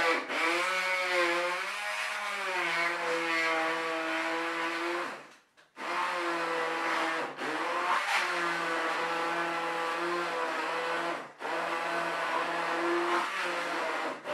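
A small electric blender motor whining as it chops cucumber in wine, its pitch sagging and recovering about a second in. It is stopped for about half a second just after the halfway point, then restarted, with a few brief dips later, as it is run in short goes.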